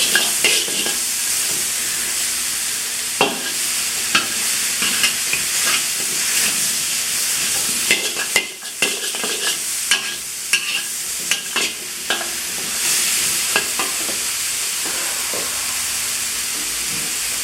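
Vegetables sizzling in hot oil as they are stir-fried, with a steady hiss and repeated irregular scrapes and knocks of a spatula against the pan.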